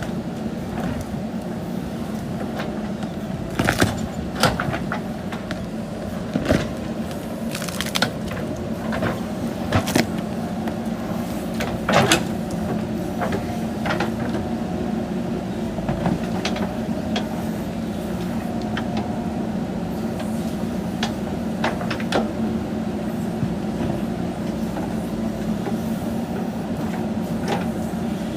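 JCB backhoe loader's diesel engine running steadily while it digs, with irregular sharp clanks and knocks from the working machine, the loudest about twelve seconds in.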